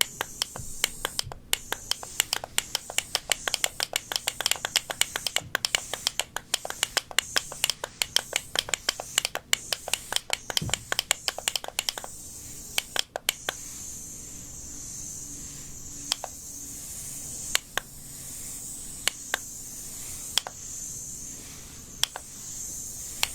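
Close-miked ASMR clicking and tapping, quick and dense at about six clicks a second, thinning out about halfway through to scattered clicks over a steady high hiss.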